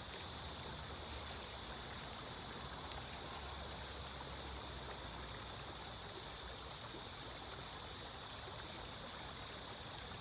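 Steady outdoor riverside ambience: an even, unbroken hiss with a faint low rumble and no distinct events.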